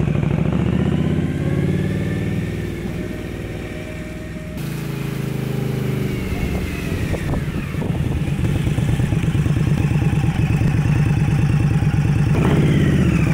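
Indian Scout Bobber motorcycle's V-twin engine running as it is ridden. Its note falls over the first few seconds, runs steadily through the middle, and rises again near the end as the rider opens the throttle.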